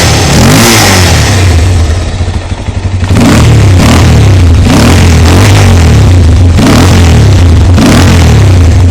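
Bajaj Pulsar 200 single-cylinder four-stroke motorcycle engine being revved in repeated blips, dropping back to idle for about a second around two seconds in, then revved again several times.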